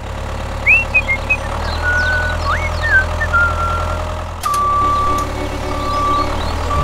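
Truck engine running with a steady low hum, a few high chirping whistles in the first half, then a reversing beeper sounding three times in the second half.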